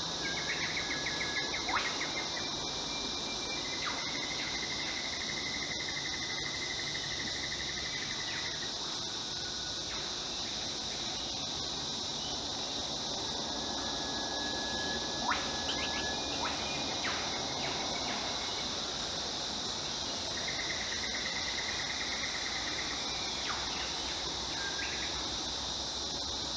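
Steady high-pitched drone of an insect chorus, with a few trills and short sharp calls from other animals, typical of birds, standing out above it now and then.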